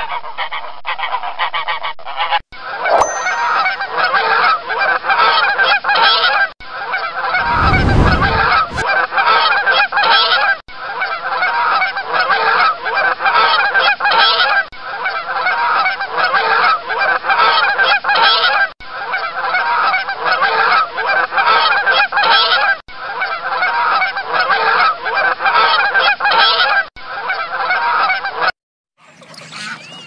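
Goose honking: a dense run of loud honks with brief breaks about every four seconds. A short low rumble comes about eight seconds in, and the honking stops abruptly near the end.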